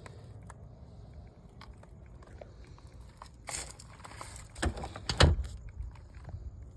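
Handling noises: scattered small clicks and rustling over a low rumble, with a louder burst of rustling about three and a half seconds in and a cluster of sharp knocks and clatter about five seconds in.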